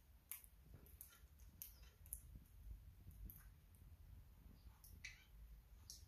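Near silence broken by faint, scattered sharp clicks and taps, about one a second.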